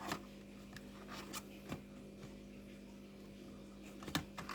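Scattered sharp clicks and knocks of small plastic and metal parts being handled as a laptop RAM module is fitted, the loudest near the end, over a steady low hum.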